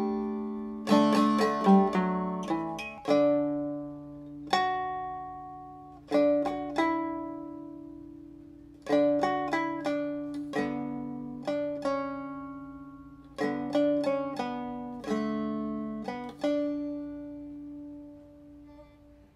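Soundtrack music: a plucked string instrument playing a slow melody of single notes and chords that each die away, ending on a last note that rings out and fades.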